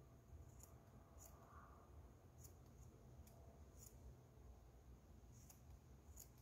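Faint, irregular snips of small scissors cutting into cloth, about seven short clicks, over a quiet low background.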